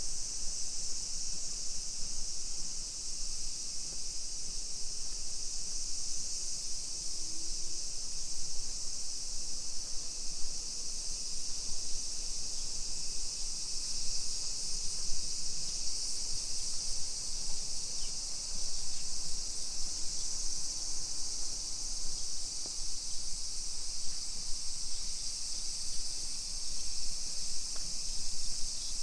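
Cicadas singing: a steady, unbroken high-pitched buzz over faint street background noise.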